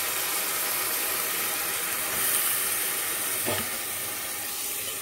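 Chopped onion, tomato, bamboo shoots and boiled chickpeas sizzling steadily as they fry in a pan, with a brief clink about three and a half seconds in.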